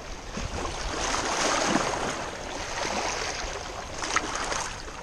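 Small waves washing and splashing against the rocks of a breakwater, swelling about a second in and easing off toward the end.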